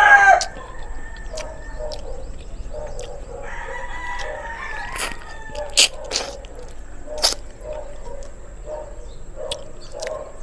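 A rooster crowing. A loud crow ends just after the start, then a fainter crow of about two seconds comes about three and a half seconds in, with short low calls in between. A few sharp clicks are scattered through the middle.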